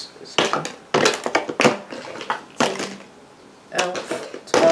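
Empty plastic cosmetic bottles, jars and tubes being picked up and set down one after another: a run of short clattering knocks about every half second to second, as the empties are counted.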